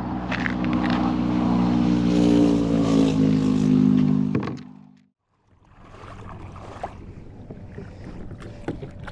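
An engine running with a steady hum that grows louder, then cuts off abruptly about five seconds in. A quieter outdoor hiss with scattered clicks follows.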